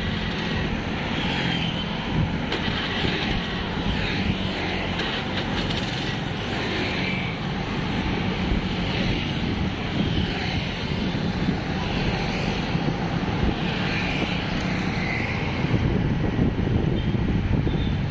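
Motorcycle ride in city traffic: the engine running steadily under a constant rush of wind and road noise, with other motorcycles and cars alongside.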